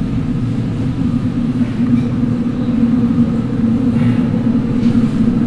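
Low, steady rumble of an approaching Seoul Subway Line 7 train echoing through the underground station, growing slightly louder.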